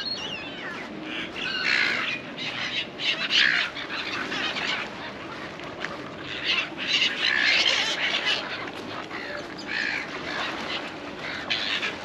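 Gulls calling, a run of harsh, raspy squawks coming again and again every second or two, over a steady low hiss.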